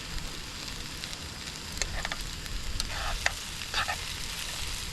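Beef burgers frying in a pan: a steady sizzle, with several short sharp pops between about two and four seconds in.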